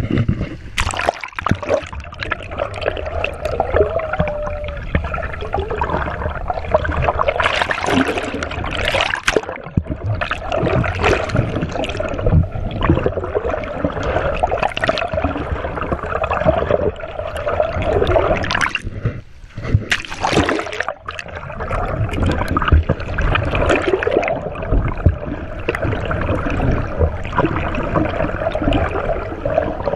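Water splashing and sloshing with gurgling, a continuous jumble of splashes.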